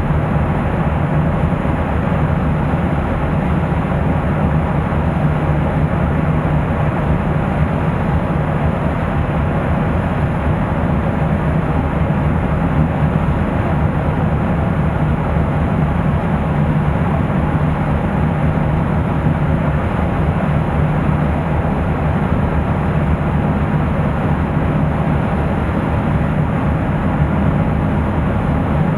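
Loud, steady wind rushing over the microphone on the deck of a moving car ferry, with the ship's low, even drone underneath.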